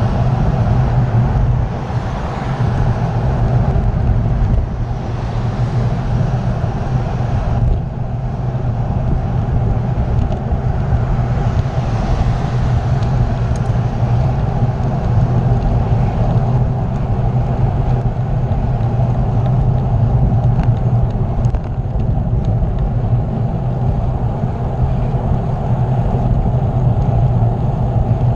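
Steady wind rumble on the microphone of a camera carried along on a moving bicycle, with a hiss over it that eases off about eight seconds in.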